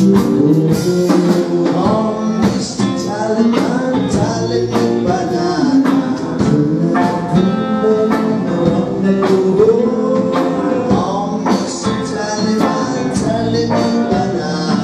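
Live rock band playing: electric guitars, electric bass and drum kit, with sung vocals over a steady drum beat.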